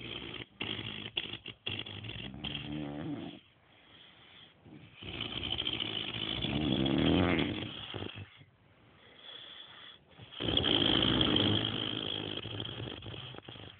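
A man snoring heavily in deep sleep: three long snores of about three seconds each, a couple of seconds apart, with quieter breathing between; the first breaks up into short choppy pieces.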